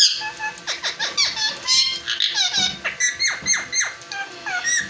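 Indian ringneck parrot making a rapid run of short, shrill chirps and squeaks, many of them sharp downward sweeps.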